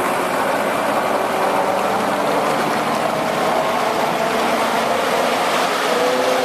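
Diesel engine of a heavy forestry machine running steadily under load.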